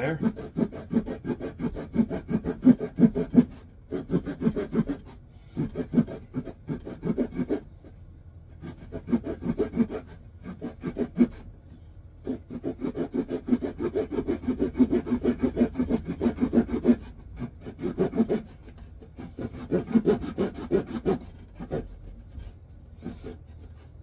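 Small hand saw cutting into a wooden stick in quick back-and-forth strokes. It saws in runs of a few seconds with short pauses between them. This is the angled first cut of a pail-handle notch.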